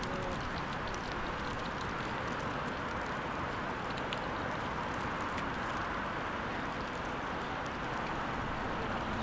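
Steady outdoor background noise with no distinct event, broken only by a few faint ticks.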